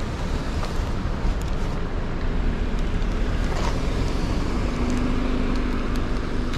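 Street traffic on a wet road: car engines and tyre noise. A steady low hum joins about two seconds in and grows stronger toward the end.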